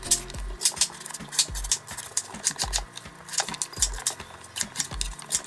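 Kitchen knife slicing through raw pumpkin and knocking on a wooden cutting board in quick repeated strokes, several a second. A deep low thud recurs about once a second underneath.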